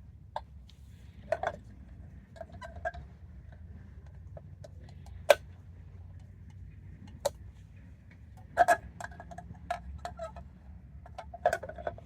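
Irregular sharp clicks and knocks of a wheel center cap being pushed and tapped against the wheel as it is fitted, the loudest single knock about five seconds in and a busier run of clicks near the end. A faint low rumble runs underneath.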